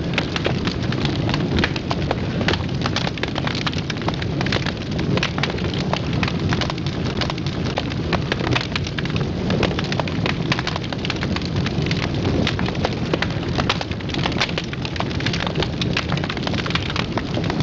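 Wood fire burning in a fireplace: dense, irregular crackling and snapping over a steady low rumble of the flames.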